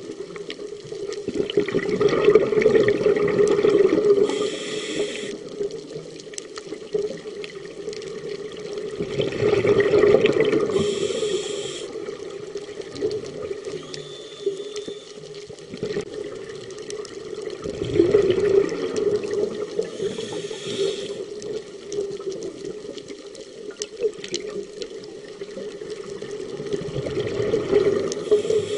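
Scuba diver breathing through a regulator underwater: four bubbly exhalations, one about every eight seconds, the first three each followed by a short hiss of inhalation.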